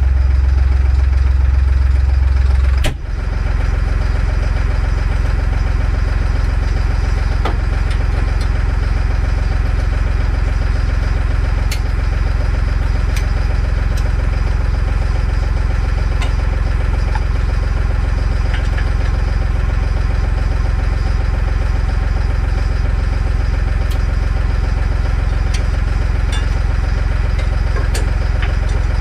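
An engine running steadily. About three seconds in, a deep low hum cuts off with a clunk and a brief dip, and the engine runs on evenly.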